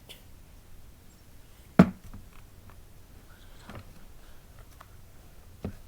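One sharp knock about two seconds in, with a few faint clicks and light handling noises of small objects being moved while searching.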